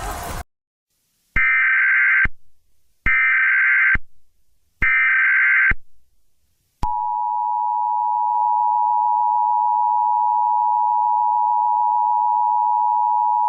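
Emergency Alert System tones. First come three short bursts of shrill, buzzing data tones: the SAME digital header. About a second after the last burst, the steady two-pitch attention signal starts and holds unbroken.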